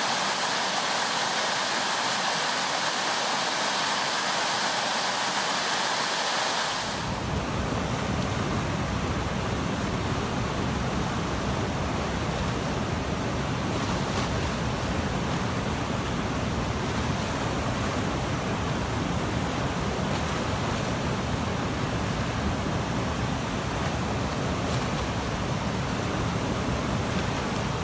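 Brown floodwater of the James River gushing through a gap in a stone wall, a bright steady hiss; about seven seconds in it gives way to the deeper, steady rumble of the Hollywood Rapids running in flood near the river's crest.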